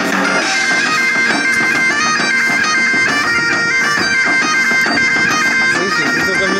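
Background music: a reedy wind instrument plays a quick, stepping melody over a steady drone, bagpipe-like.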